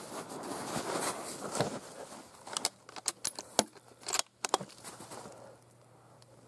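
Rustling of clothing or gear, then about two and a half seconds in a quick run of sharp metallic clicks and clacks lasting about two seconds, fitting the bolt of a Howa 1500 .223 bolt-action rifle being worked to eject the spent case and chamber the next round.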